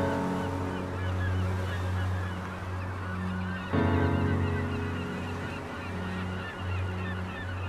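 Gulls calling over and over, many overlapping short cries, above a steady low hum. A sustained, many-toned sound comes in suddenly about four seconds in.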